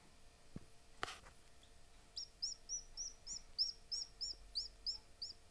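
Newly hatched Appenzeller chick peeping: a quick run of about a dozen short, high peeps, nearly four a second, starting about two seconds in. A brief rustle about a second in.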